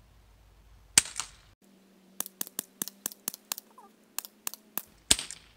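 Two shots from a .177 CO2 air revolver (a Crosman Vigilante), one about a second in and one near the end, with a run of about a dozen short, sharp clicks between them.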